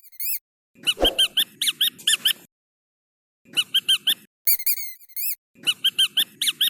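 Rubber squeaky dog toy squeezed rapidly, giving quick runs of high, chirpy squeaks in four bursts with short pauses between, over a dull rubbery rustle. A single knock comes about a second in.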